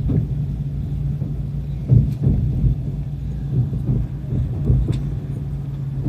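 Steady low running hum heard inside a moving vehicle, with a few dull knocks, the loudest about two seconds in.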